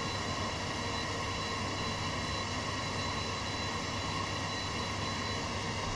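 Steady hiss with a constant low hum, with no singing or instruments.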